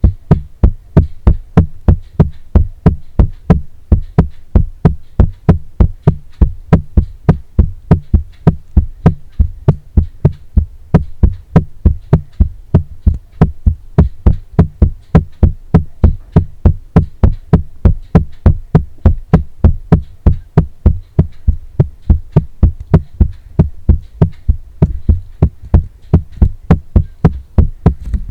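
Paper being tapped in a steady, even rhythm of dull taps, about three a second.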